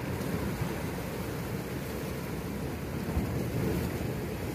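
Steady rumble of wind on the microphone mixed with the sea washing against shore rocks.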